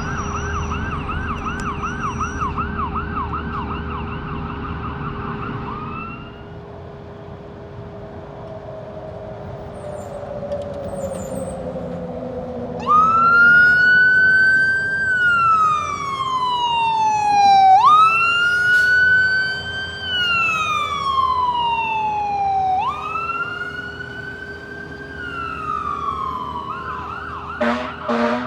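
Fire engine's siren on an emergency response. It sounds a fast yelp for about six seconds, then a slow falling tone, then three long wails that each rise sharply and fall slowly, and switches back to a fast yelp near the end. A steady low hum runs underneath.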